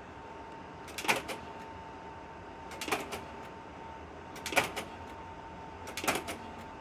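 Kodak Ektapro slide projector cycling slides four times, each change a quick cluster of mechanical clicks, about every one and a half to two seconds. A steady faint hum with a thin high tone runs underneath.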